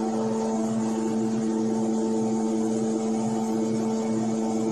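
A motor humming steadily at one even pitch.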